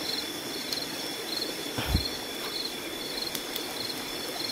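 Night insects calling: one chirps in short high trills repeating about every half second over a steady high insect whine, with running stream water underneath. A single low thump about two seconds in.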